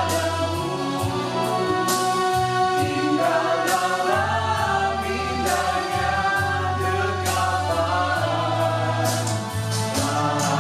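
A small mixed worship group of men and women singing a slow Indonesian praise song together, over held keyboard chords and bass notes.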